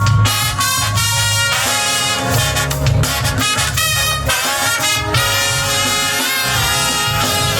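Brass band playing an upbeat piece: bright brass melody and chords over a strong, moving bass line.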